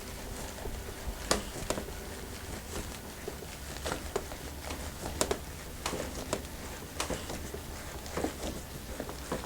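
Hands massaging skin: soft, irregular rubbing with scattered light clicks and crackles, over a steady low hum.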